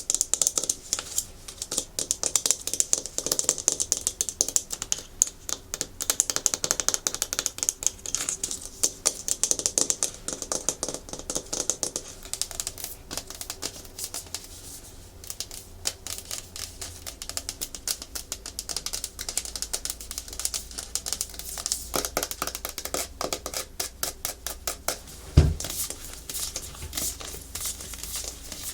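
Natural fingernails tapping and scratching fast on a hard plastic surface: a dense, rapid stream of clicks. There is one louder knock near the end.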